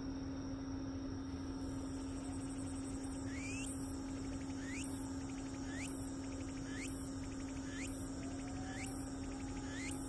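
Meimuna opalifera (tsukutsuku-boshi) cicada singing: a rapid pulsing begins about a second and a half in, and from about three seconds in there are rising sweeps about once a second. A steady low hum runs under it.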